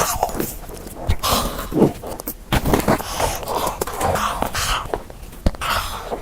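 Close-miked eating sounds: biting and chewing with wet mouth noises, broken by several sharp clicks.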